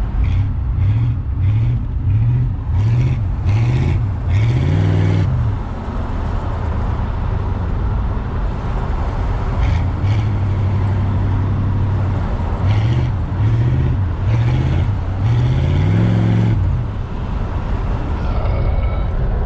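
The 305 TBI small-block V8 of a 1993 Chevrolet Caprice wagon running while driving, its engine note swelling up and down in quick repeated surges with a steadier stretch in the middle. This is an engine that runs badly and stalls unless it is kept on the throttle.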